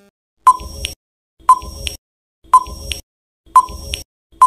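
Countdown timer sound effect: a short electronic tick-beep about once a second, five in all.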